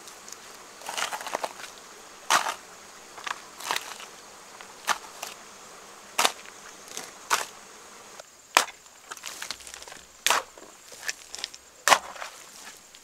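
Hand hoe chopping into and scraping through wet, muddy soil, with separate strokes at an uneven pace of about one a second.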